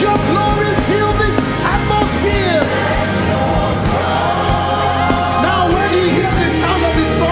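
Live gospel worship music: a band holding sustained bass notes and chords under singing voices, with regular high cymbal-like strokes.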